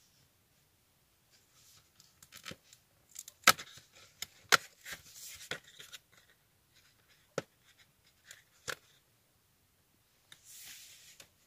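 Cardboard advent calendar door being pried and torn open and the chocolate taken out: sharp clicks and snaps, the loudest two in the middle, with short stretches of papery rustling and tearing.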